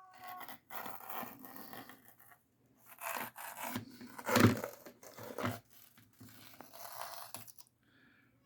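A cardboard parts box being torn open and its paper packing pulled and rustled, in a series of uneven ripping and rubbing strokes. The loudest rip comes about halfway through.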